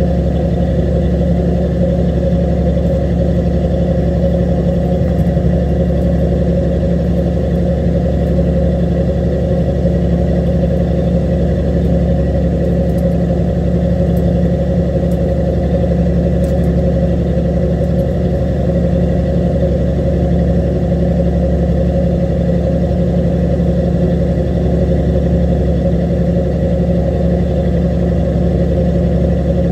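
Fishing boat's engine running steadily: a constant low drone with a steady hum, unchanging throughout.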